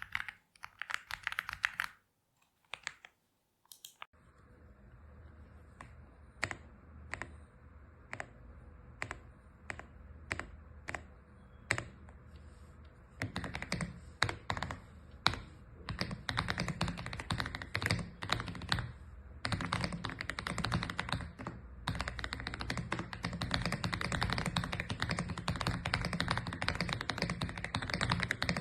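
AULA F75 mechanical keyboard with pre-lubed Reaper switches being typed on. At first single keystrokes come about every half second, then about 13 seconds in it becomes fast continuous typing with two brief pauses.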